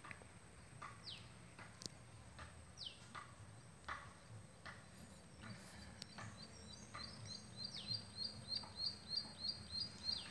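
Birds calling: sharp falling whistles about once a second, then, from about halfway, a fast series of repeated chirps, roughly three a second, that grows louder toward the end.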